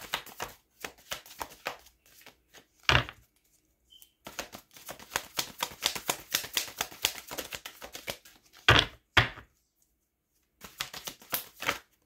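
A deck of tarot-style cards being shuffled by hand: runs of rapid papery clicking that break off and start again, with a few louder thumps, one about three seconds in and two near the nine-second mark.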